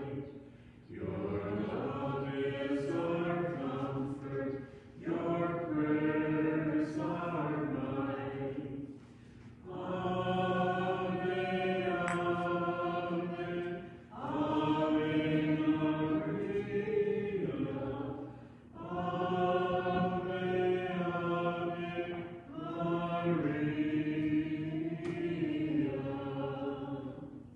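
Voices singing a hymn line by line, about six sung phrases of four seconds or so, each followed by a brief pause.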